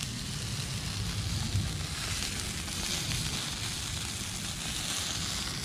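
Cheddar-filled burgers sizzling over charcoal on a stainless-steel barbecue grill: a steady hiss with small crackles.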